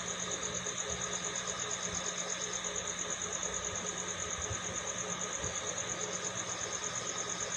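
Steady machine-like hum with a faint high-pitched whine, its level pulsing evenly several times a second.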